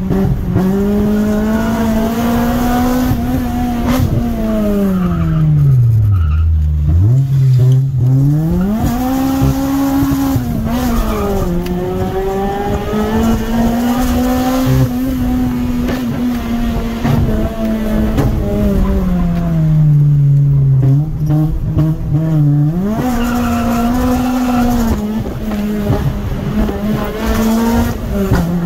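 Car engine heard from inside the cabin, held at high revs. The pitch sags low twice, about six and about twenty seconds in, as the engine eases off, then climbs quickly again under hard acceleration.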